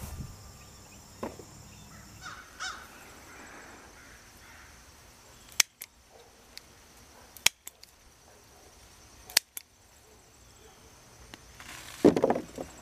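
Scissors snipping through cayenne pepper stems: three sharp snips about two seconds apart, then a clatter of peppers dropped into a plastic tub near the end.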